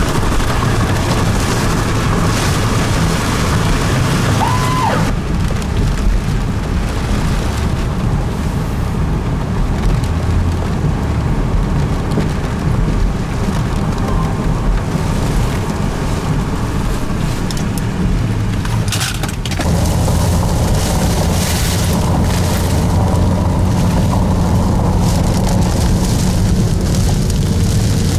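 Strong storm wind buffeting the microphone as a loud, steady low rumble, mixed with rain and a vehicle's engine and road noise; the sound shifts abruptly about five and nineteen seconds in, and a short beep sounds about four seconds in.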